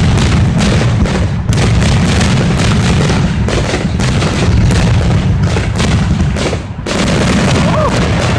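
Fireworks display going off in a dense, continuous barrage of loud booms and bangs, with a brief lull near the end.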